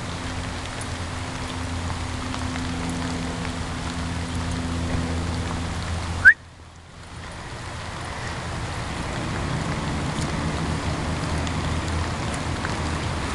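Steady outdoor background noise with a low hum. About six seconds in there is a single sharp click, after which the sound almost drops out and then fades back in over a couple of seconds.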